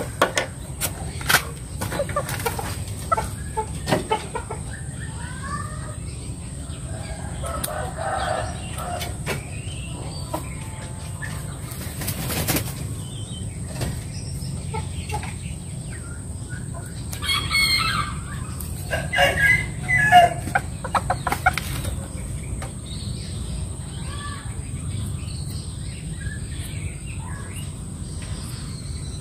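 Serama bantam rooster clucking and flapping its wings while its feathers are trimmed with scissors, with many short snips and clicks. A louder stretch of crowing comes about 17 to 21 seconds in.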